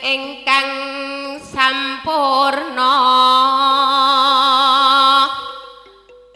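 A woman singing into a microphone in Javanese sindhen style: a few short phrases, then one long held note with a wavering vibrato that fades away near the end.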